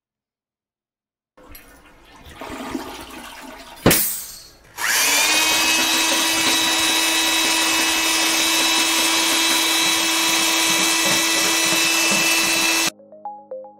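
Handling noise with one sharp knock, then a power drill spins up with a briefly rising whine and runs steadily at full speed for about eight seconds before cutting off suddenly.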